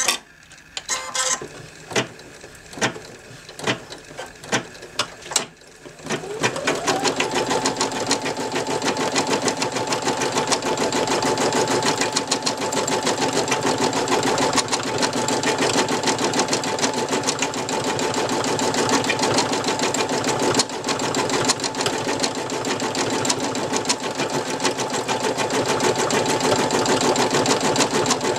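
Brother NV2600 computerised embroidery machine stitching: first a series of separate clicks, then about six seconds in its motor speeds up with a rising whine and it settles into fast, steady, rapid-fire stitching.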